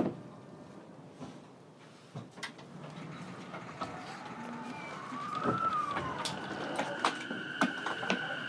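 E233 series electric train heard from inside the motor car. A thud comes right at the start, then the car is quiet. From about five seconds in, the traction inverter's whine sets in: a brief tone that rises and falls, then steady high tones with scattered clicks, and a tone rising in pitch near the end as the train pulls away.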